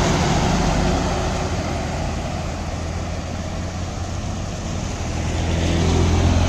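Heavy truck driving through deep floodwater: a steady low engine hum under the rush and splash of water thrown up around its wheels. The splashing is loudest at first, eases through the middle and builds again near the end.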